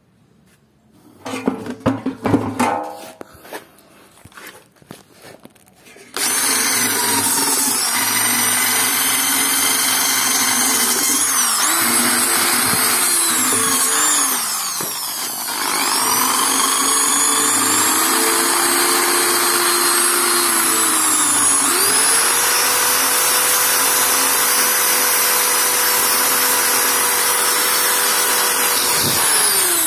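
Corded electric drill spinning a wire-brush wheel against a metal part, scrubbing off paint softened by thinner-based stripper. The drill's steady whine starts about six seconds in, after some irregular knocking and handling. Its pitch dips and recovers a few times as the brush is pressed on, and it winds down near the end.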